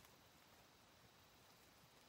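Near silence: a faint steady hiss with a thin, high steady tone.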